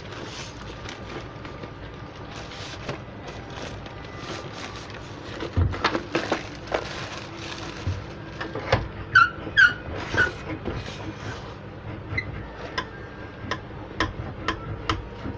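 Plastic courier mailer bag crinkling and being pulled open, then a cardboard box handled and its lid opened, giving rustles and a run of sharp clicks and crackles. The handling gets busier about five seconds in, with a few short squeaks near the middle.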